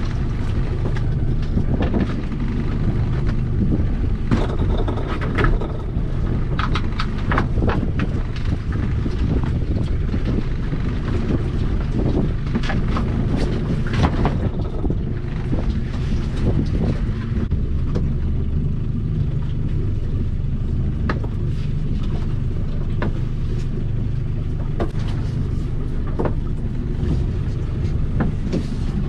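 Steady low rumble of a small boat's outboard motor running, with wind on the microphone. Scattered knocks and clatter come from lobster pot rope being hauled in over the gunwale and a pot being handled on deck.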